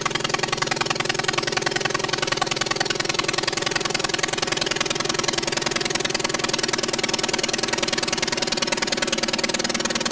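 Light aircraft engine running steadily at constant power, an even drone with a fast pulsing.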